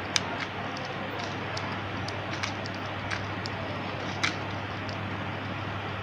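Lutino budgerigar at a plastic seed feeder making a few sharp clicks and taps, the loudest just after the start and another about four seconds in, over a steady background hum.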